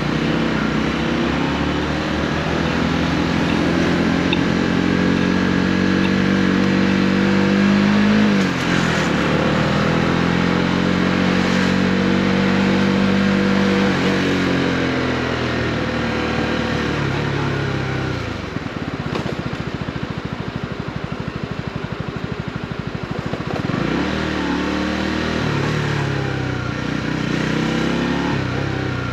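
Honda CB125R 125 cc single-cylinder four-stroke engine accelerating through the gears, its pitch climbing and dropping at each upshift. It then slows and runs low and steady for a few seconds, and picks up speed again near the end with another shift.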